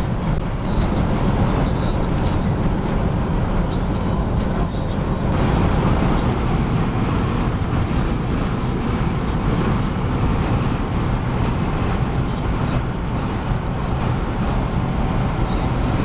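Steady low rumble of road and wind noise inside a smart fortwo driving at speed.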